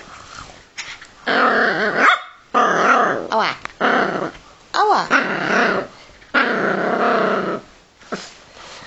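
Yorkshire terrier growling in play at a hand that teases it, in several long bouts with a couple of short yips mixed in.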